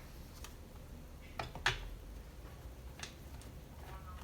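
A few light clicks and knocks of tools and metal parts being handled on a bench, the sharpest about a third of the way in, over a faint steady hum.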